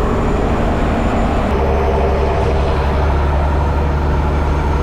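Slow boat's engine running steadily, a loud low drone with a constant hum. About one and a half seconds in the sound shifts abruptly and the low hum becomes stronger.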